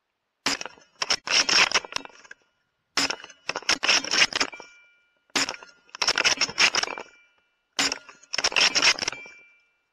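Four rapid shots from a bolt-action .308 Winchester rifle, about two and a half seconds apart. Each is followed by the clatter of the bolt being worked and a brief metallic ringing as the spent case is ejected.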